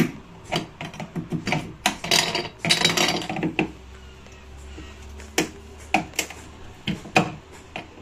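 Flat-blade screwdriver prying at a plastic roller-wheel housing set into a refrigerator's plastic base: rapid clicking and scraping of metal on plastic for the first three seconds or so, then a few separate sharp clicks.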